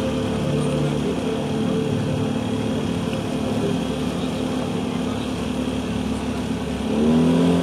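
Motorboat engine running steadily, with a low rumble under its hum; about seven seconds in it rises in pitch and gets louder as it speeds up.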